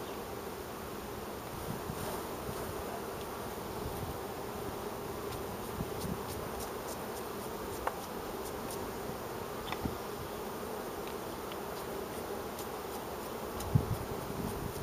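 Carniolan honeybees buzzing steadily around an open hive. A few faint clicks and a single knock come near the end.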